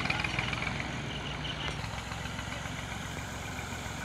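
Massey Ferguson 240 tractor's three-cylinder diesel engine idling steadily.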